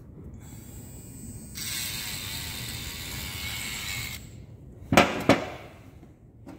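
A few seconds of handling noise, then two sharp knocks about a third of a second apart as a removed Siemens diesel injector is set down on the workbench among the others.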